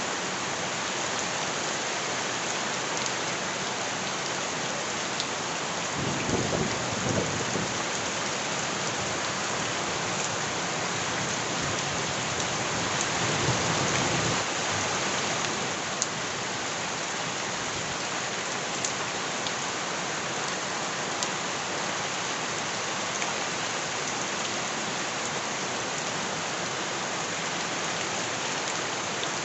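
Steady heavy rain, a dense even hiss with single drops ticking now and then. A low rumble of thunder comes about six seconds in, and a longer, louder one near the middle.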